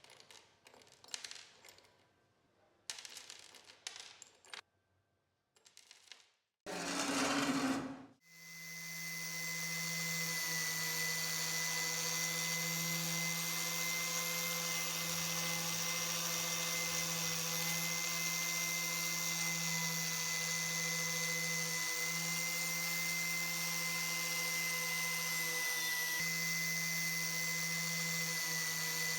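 Light clinks and clicks of small metal parts being handled, then a short burst of hissing, then an electric power tool spins up over a couple of seconds and runs steadily at constant speed with a steady whine.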